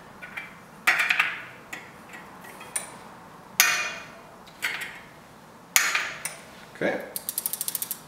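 Sharp metallic clicks and knocks from a spoke key working the spoke nipples and the wheel being handled, then near the end the rear hub's freewheel ratchet ticking rapidly and evenly as the wheel turns.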